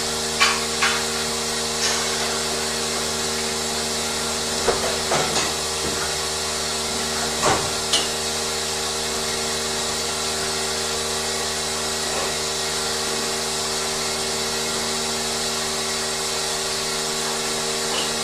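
Dairy barn machinery running with a steady hum and hiss, with a few scattered knocks and clanks in the first half.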